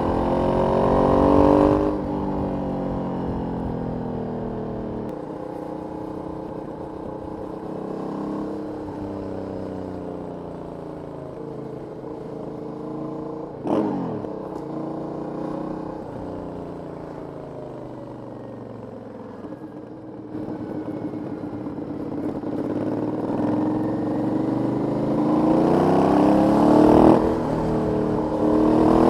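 Aprilia 900 V-twin motorcycle on its stock exhaust, under way: the engine note falls slowly as it rolls off, with a brief sharp rise in revs about halfway through. Near the end it accelerates hard, pitch climbing, with a gear change.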